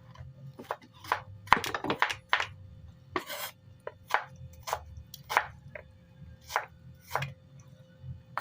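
Knife chopping on a cutting board: sharp single strokes at uneven intervals, with a quick run of strokes about two seconds in.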